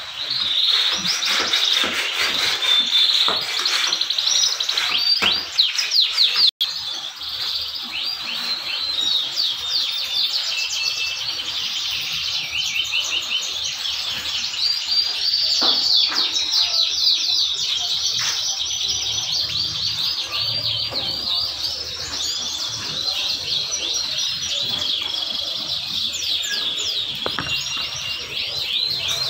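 Many caged domestic canaries singing at once: a dense, continuous chorus of rapid high trills and chirps.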